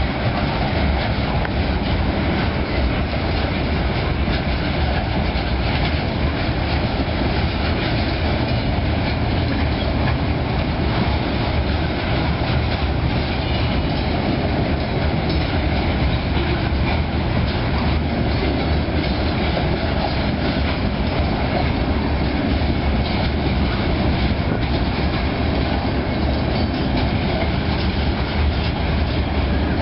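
Freight train of open-top hopper cars rolling past, a steady loud rumble of steel wheels on rail with a continuous clickety-clack.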